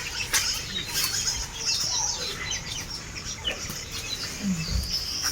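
Birds chirping, with many short high calls and quick falling notes, and a few sharp clicks in between.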